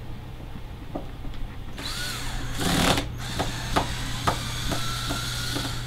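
A cordless drill starts about two seconds in and runs, with a few sharp clicks after its loudest moment, backing screws out of set body filler on a horned skull mount.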